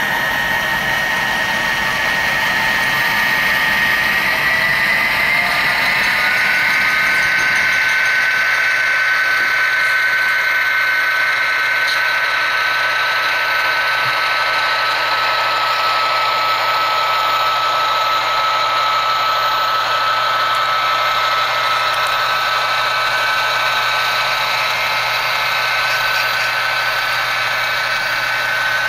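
HO scale sound-equipped diesel locomotives, a Walthers NS GP60 and an Atlas NS B40-8 with Tsunami sound decoders, running under power: recorded diesel engine sound from their small on-board speakers, mixed with the whine of the models' motors and gears. A steady whine glides up and settles on a new pitch about five seconds in.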